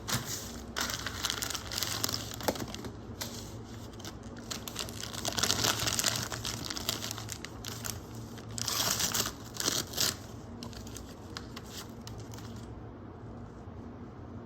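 Packaging crinkling and tearing as a toy's wrappers are handled and pulled open, in three louder bouts of rustling over the first ten seconds, then quieter handling.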